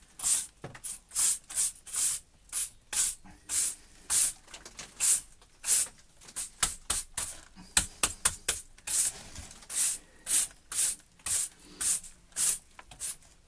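Stiff brush being worked against fresh lime pointing on a stone arch, scratchy strokes about twice a second with a quicker run of short dabs about halfway through: the lime is being brushed back and bashed in to finish the joints.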